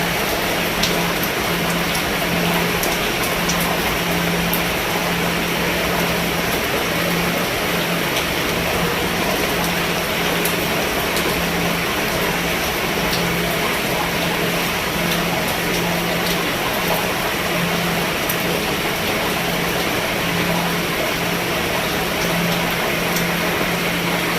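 Steady rain falling on a roof, an even hiss with faint scattered drop ticks. Under it, a low hum swells and fades about once a second.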